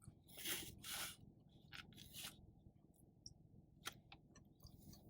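Faint mouth sounds of a person chewing food, a few short bursts in the first two and a half seconds, with a small click near four seconds in.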